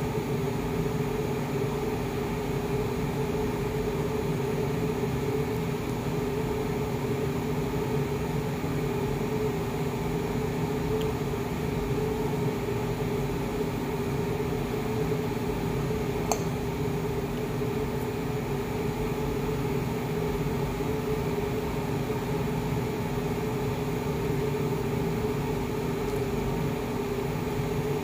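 Steady machine hum, like a running air conditioner or kitchen appliance, with a held low tone and even noise beneath it; a single faint click sounds about halfway through.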